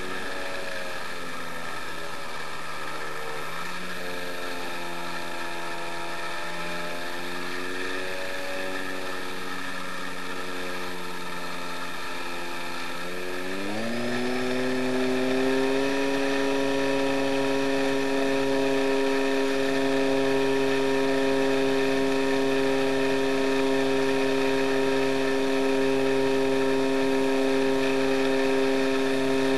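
RC model plane's motor running, picked up by a camera on the plane's tail; its pitch wavers for the first half, then rises at about fourteen seconds as it speeds up and holds steady and louder.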